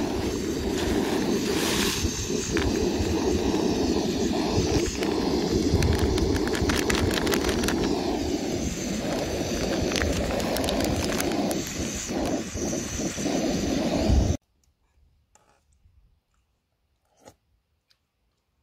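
Small gas canister camping stove burning full under a metal mug of water at a hard rolling boil: a steady burner roar with bubbling crackles and pops. It cuts off suddenly about fourteen seconds in, leaving near silence with a few faint ticks.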